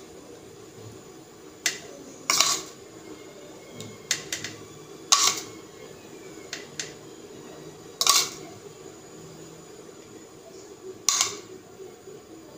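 A steel spoon clinking against a ceramic bowl and plate, several separate sharp clinks a second or two apart, as sweetened milk is scooped up and spooned over slices of bread.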